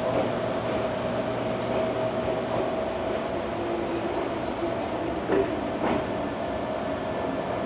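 Ohmi Railway electric train running, heard from inside the car: a steady whine with the rumble of the car, and two sharp clacks from the wheels over the rail about five and a half seconds in.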